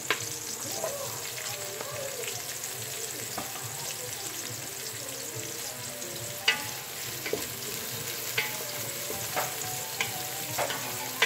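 Sliced ginger, garlic and onion sizzling in hot oil in an aluminium pressure cooker pot, stirred with a wooden spatula that knocks against the pot several times in the second half.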